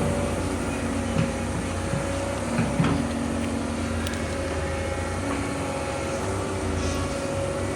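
Excavator engine running steadily, with a few short knocks and clanks about a second in and near three seconds in.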